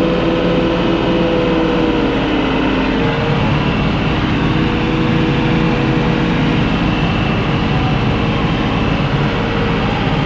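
Tractor engine running steadily under load while pulling a bush hog (rotary cutter), heard from inside the cab. The engine note shifts slightly about three seconds in.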